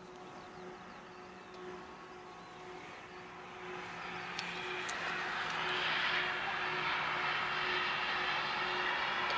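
Airliner engines growing steadily louder as a plane approaches, a broad rushing noise with a steady whine in it building over the last several seconds.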